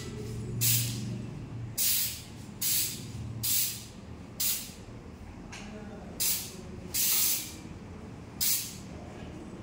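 Aerosol can of white contrast paint spraying in short hissing bursts, about eight in a row, laying the white background coat on a weld for magnetic particle testing.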